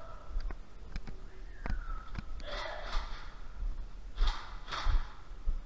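A person breathing hard in loud gasps, three heavy breaths in the second half, with a few sharp clicks in the first two seconds.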